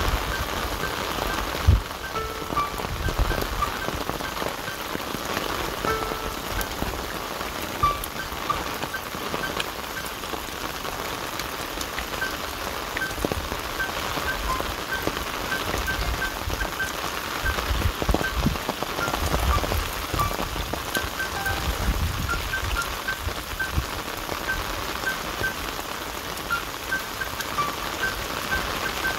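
Steady hiss of rain falling, with soft music running underneath. Occasional low rumbles come and go.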